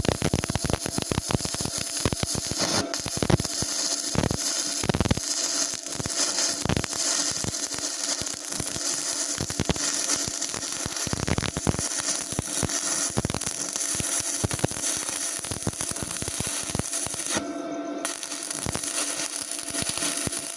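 Stick (arc) welding: the electrode's arc crackles steadily with many sharp pops. The arc breaks off for a moment about three seconds before the end and is struck again.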